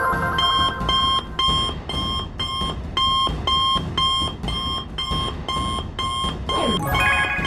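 Electronic call alert of a cartoon smartwatch ringing as repeated short beeps, about two a second, while the call to Rikki comes through. Near the end a falling sweep cuts in as the beeping stops.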